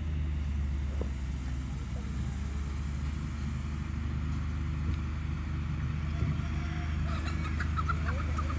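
Farm tractor engine running steadily as the tractor drives slowly across a field. Short bird calls come in near the end.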